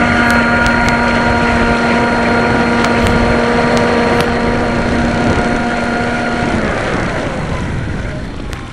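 Brushed electric motor of a radio-controlled scale model patrol boat whining at a steady pitch as the boat runs at speed, over a hiss of water and spray. The whine cuts off about three-quarters of the way through, leaving the fading rush of water.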